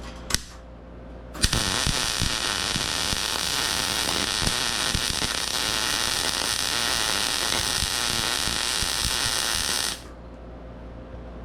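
Electric welding arc crackling steadily for about eight seconds as a door hinge is welded onto a steel tank. It starts about a second and a half in and cuts off suddenly near the end, with a sharp click just before it starts.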